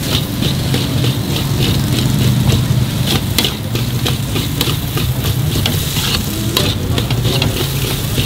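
Instant noodles being stir-fried in butter in a large aluminium wok: a steady sizzle, with the metal spatula scraping and clanking against the wok about two to three times a second. A steady low rumble runs underneath.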